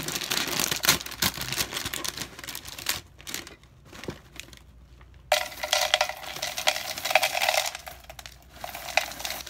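Plastic cereal bag liner crinkling, then from about five seconds in Frosted Flakes and small cinnamon cereal balls poured from the bag into a clear cup, a dense rattle of many small pieces landing.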